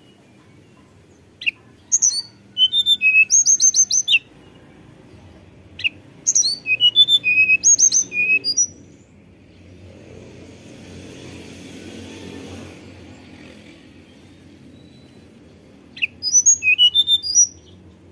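Hill blue flycatcher singing: three short phrases of quick, clear, high fluting whistles, one about a second and a half in, one about six seconds in and one near the end.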